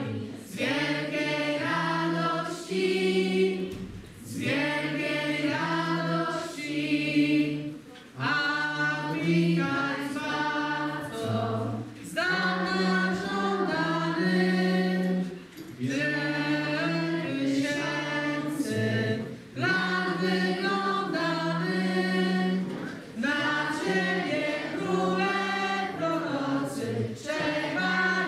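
A group of voices singing a Polish Christmas carol unaccompanied, in phrases of about four seconds with short breaks between them.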